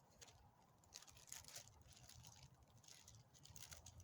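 Faint rustling and crackling of hands pushing a small squirrel onto a split green-wood skewer, in a few soft scratchy bursts.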